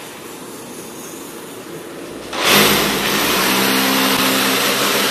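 Corded electric drill boring into a wall, the motor running steadily with the bit grinding. About two and a half seconds in it gets suddenly louder, with a steady motor hum under the grinding.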